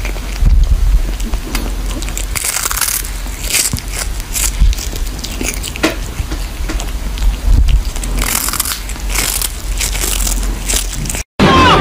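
A cat crunching and chewing a dried fish, with irregular crisp crunches every second or so over a low rumble. Music cuts in suddenly near the end.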